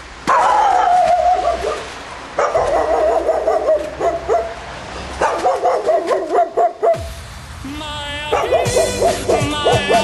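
A dog barking and yelping: a falling, howl-like yelp, then two runs of repeated barks. The sound cuts off abruptly about seven seconds in, and music with a singing voice begins about a second later.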